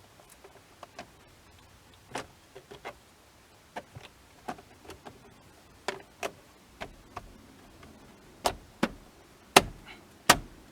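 Irregular clicks and knocks of hand tools and metal parts as a seat belt's anchor bolt and fittings are set in place on a car's pillar. The knocks come every half second to second, and the loudest few land in the last three seconds.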